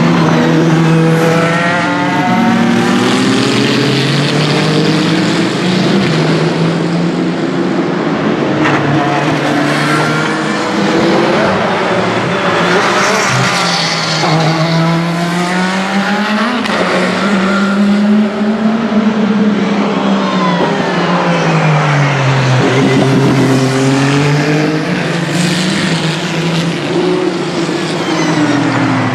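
WEC Hypercar-class endurance prototypes, LMH and LMDh cars, running at racing speed past the trackside. Their engines rise and fall in pitch several times as one car after another passes, lifting and downshifting and then accelerating away.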